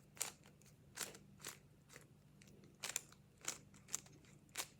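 3x3 speed cube being turned quickly by hand, its layers making short plastic clicks at an uneven pace of a couple per second.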